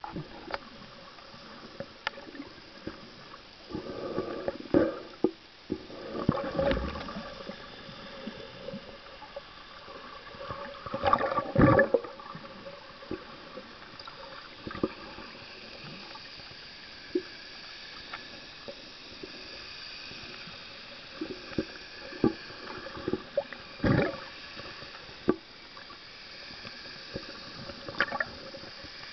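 Muffled underwater sound heard through a submerged camera: a steady watery hiss scattered with small clicks and knocks, and a few short bubbling gurgles, the loudest about halfway through.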